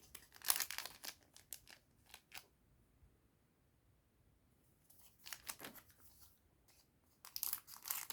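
Foil trading-card booster pack being opened and handled: short bursts of crinkling and tearing through the first couple of seconds, a quiet pause, then more crinkling from about five seconds in and near the end.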